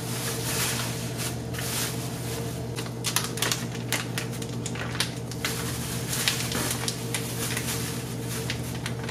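Thin plastic grocery bag and a paper packet of fish-fry breading crinkling and rustling in irregular crackles as the breading is shaken out over catfish fillets in the bag. A steady low hum sits underneath.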